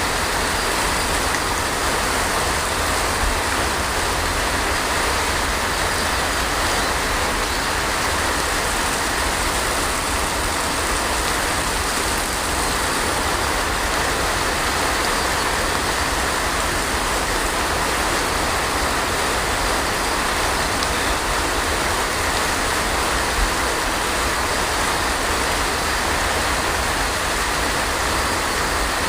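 Heavy rain falling steadily: an even hiss with a low rumble underneath.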